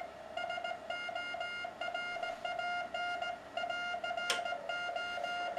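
Morse code (CW) signal from a Yaesu FT-200 receiver, passed through an MFJ-781 DSP filter on its 500 Hz CW setting and heard from the speaker: one steady beeping tone keyed on and off in dots and dashes. A single click about four seconds in as the filter's knob is turned.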